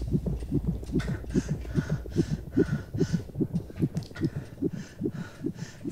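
Heartbeat-like sound effect from the film's soundtrack: rapid, evenly spaced low pulses with faint breathy hiss between them. A low hum under it drops away about two seconds in.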